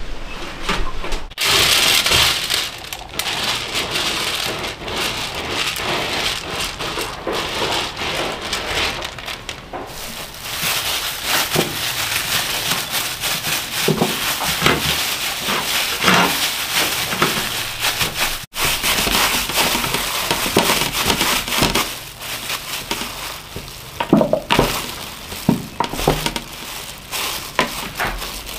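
Thin plastic food-prep gloves crinkling and rustling as hands knead and shape sticky-rice dough on metal trays, with a few sharp taps near the end.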